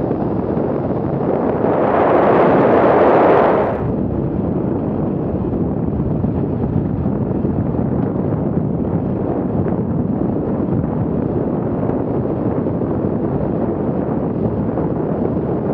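Wind rushing over the microphone of a camera on a KTM enduro motorcycle riding at speed, with the bike running underneath. A louder gust of wind buffeting lasts about two seconds near the start.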